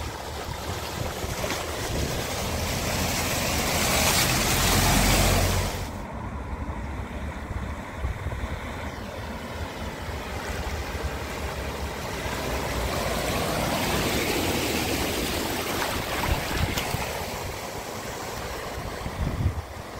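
Cars driving through deep floodwater: the rushing wash and splash of water pushed aside by the wheels, swelling as each vehicle comes close. The first wash peaks and cuts off suddenly about six seconds in. A Toyota's wash then builds to a peak near the middle and fades as it passes.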